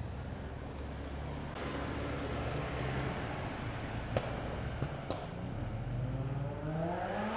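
New-generation BMW MINI hatchbacks driving slowly past at low revs: steady engine hum with tyre noise on tarmac and two short clicks in the middle. Near the end an engine speeds up, its note rising.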